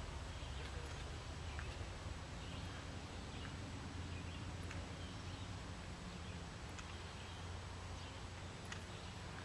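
Open-air ambience: a steady low rumble with faint, scattered bird chirps and a few light clicks.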